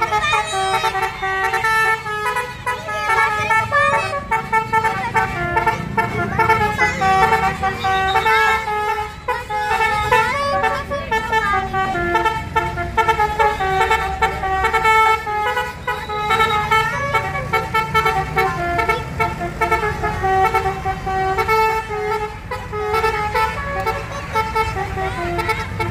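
Bus-mounted Basuri telolet horn playing a tune of quickly changing notes, several tones sounding together, over the low rumble of the bus.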